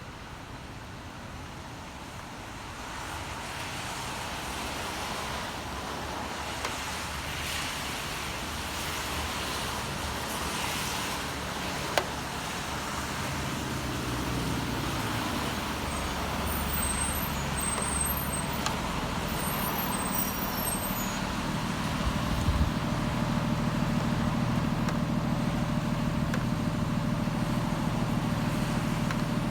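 City street traffic. A heavy vehicle's engine grows louder from about halfway through and runs steadily and close near the end, with a single sharp click about twelve seconds in.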